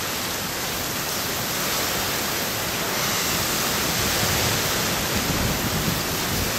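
Typhoon rain and wind: a steady, dense hiss of driving rain that grows slowly louder, with gustier wind buffeting toward the end.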